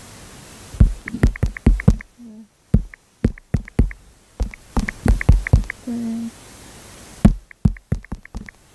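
Fingers tapping keys on a phone's touchscreen keyboard, each tap with a short key-click, in quick runs of several keys as words are typed.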